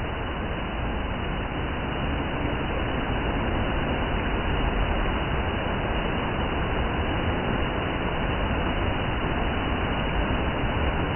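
Waterfall's falling water rushing steadily, an even noise with a low rumble and no breaks.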